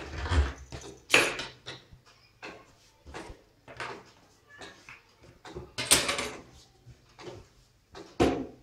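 Scissors cutting through blouse fabric on a wooden table, with the cloth being handled: a series of short, irregular cutting and rustling sounds.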